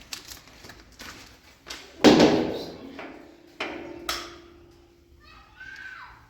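Scattered knocks and clicks, with one loud bang about two seconds in that is followed by a steady ringing tone lasting a couple of seconds.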